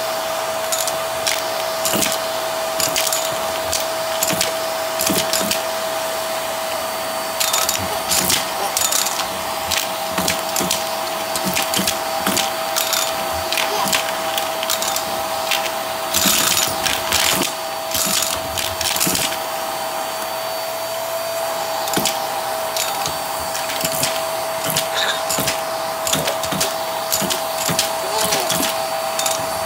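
Hart vacuum running with a steady motor whine while its nozzle sucks up plastic caps, coins and confetti from carpet. The debris clatters and crunches up the tube in many sharp clicks and rattles, with thicker bursts of them now and then.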